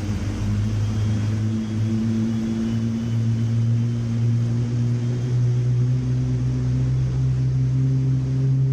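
Jet engine during startup: a steady low hum with a few overtones, creeping slightly up in pitch.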